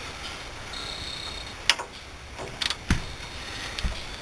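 A few sharp metallic clicks and two dull knocks from hand tools being worked on the strut's pinch bolt, which is a little bit tight.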